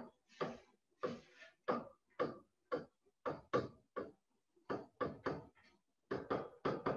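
Handwriting strokes of a pen on a digital writing surface: a run of short, separate strokes, about two or three a second, with a couple of brief pauses between letters.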